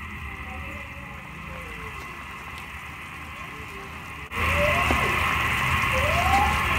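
A pot of pork and guava broth simmering, a steady bubbling hiss. About four seconds in it suddenly gets louder, as a spoon works through the pot mashing the softened guavas.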